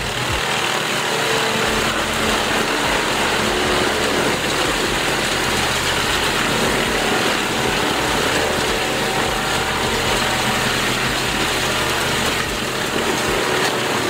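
Vermeer horizontal grinder running under load, its diesel engine and grinding drum chewing up pallets and scrap wood in one steady, loud mechanical din.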